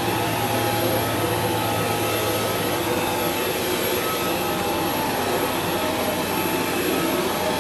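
Dyson V11 Torque Drive cordless stick vacuum running steadily: an even rush of air with a steady motor whine of several fixed tones on top.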